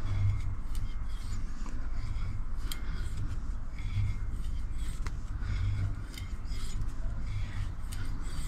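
Hand tap in a T-handle tap wrench cutting a thread into the joint between a stainless shaft and a cast iron hand wheel hub. It makes irregular metal scraping strokes with small clicks as the wrench is turned.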